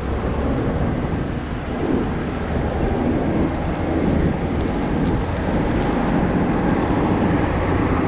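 Wind noise on the microphone of a rider's camera while cycling along a road, over a steady low rumble.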